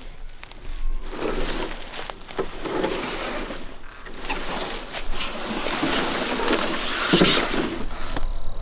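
Footsteps crunching and rustling through dry fallen leaves and brush, in an irregular walking rhythm.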